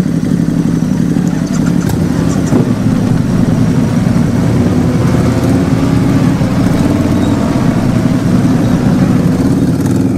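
Honda GL1800 Gold Wing's flat-six engine running steadily on the move, with a constant rush of noise over it.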